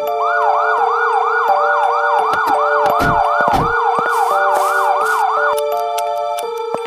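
Emergency-vehicle siren in fast yelp mode, rising and falling about three times a second, over background music with sustained synth notes; the siren cuts off about five and a half seconds in. Two low thuds come near the middle.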